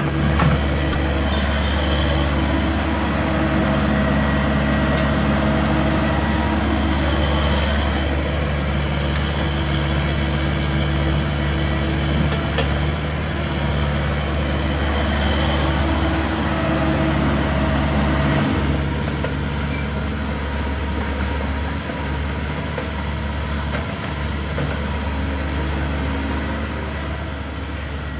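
CAT 305.5E2 mini excavator's diesel engine running steadily at working speed while it digs dirt, with a few faint clicks. The engine note settles and gets a little quieter after about 18 seconds.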